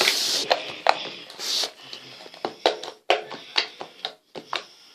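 Homemade fluffy slime being squeezed and poked by hand for ASMR, giving a string of short sticky clicks and pops.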